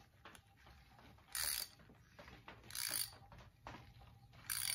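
A quarter-inch NPT pipe tap is turned by hand to cut threads into an oil galley hole in the cast-iron block of a 350 small-block Chevy. It gives a short grating rasp about every one and a half seconds, three times, with faint ticks between them.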